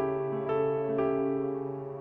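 Film score music played on a keyboard: chords struck about every half second over a held low note, fading a little near the end.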